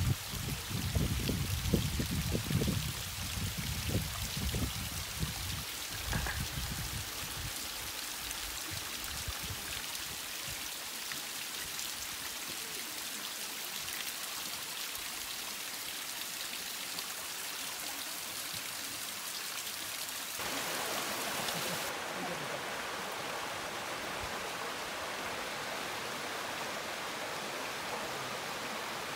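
Water trickling and splashing down a wet rock face, with a low rumble over the first few seconds. About twenty seconds in it changes abruptly to the fuller, steady rush of a mountain stream cascading over rocks.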